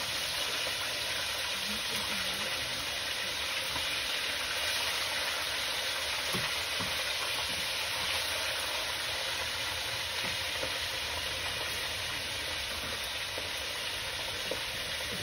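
Pieces of fish deep-frying in a pan of hot fat, a steady sizzle. The fish is still wet, and its water is boiling off.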